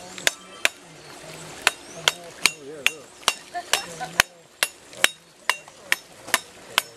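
Sharp, even clicks or taps, about two and a half a second, with faint voices behind.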